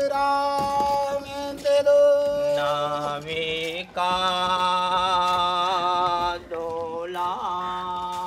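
Hindustani classical singing: a voice holding long, steady notes, the longest about two seconds, with small wavering ornaments between them.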